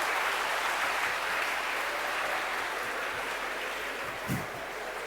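Audience applause after a joke's punchline, slowly dying away, with a faint knock near the end.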